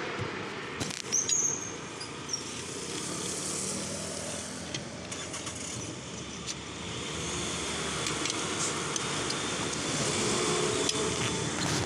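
A motor vehicle engine running steadily close by, with a few sharp metal clinks from tyre levers being worked into a tyre bead on a steel rim.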